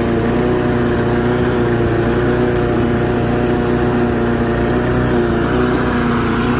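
8.5-horsepower Briggs & Stratton pressure-washer engine on a homemade push mower, running steadily at a constant pitch.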